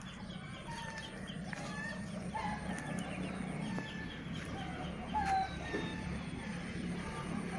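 Chickens clucking: a string of short calls, one every half second to a second.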